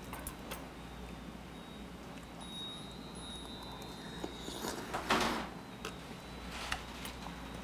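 A person slurping siraegi soup, sucking the broth and soft radish greens off a spoon, with one louder slurp about five seconds in. Light clicks of a metal spoon against the bowl come now and then.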